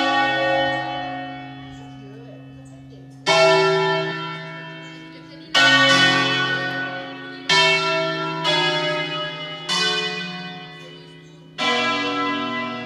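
Church bells from an eight-bell set ringing a solemn concerto pre-programmed on the automatic ringing system, with a bell swinging in the belfry. Six separate strikes come one to two seconds apart, each a loud clang at a different pitch that rings on and fades as the next one sounds.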